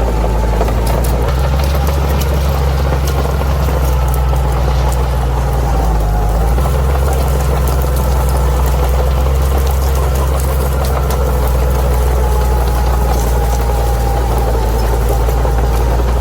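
Bulldozer's diesel engine running steadily with a deep drone, its note shifting slightly about six and a half seconds in. A thin whine and faint scattered clicking sit above it.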